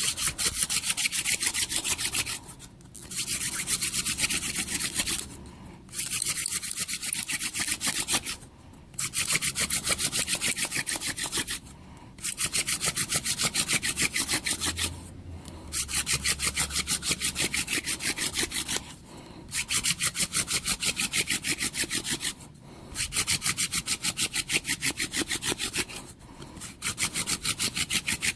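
Primitive friction-fire hand drill: a mullein spindle spun back and forth between the palms, its tip rubbing in the socket of a cedar hearth board. It makes a fast, rasping rub in about nine runs of two to three seconds each, separated by short breaks, while the hearth is still hot from the last attempt.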